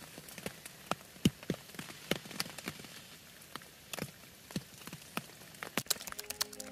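Scattered raindrops falling on a tarp and leaf litter at night: irregular sharp taps, a few a second, over a faint hiss. Soft music comes in near the end.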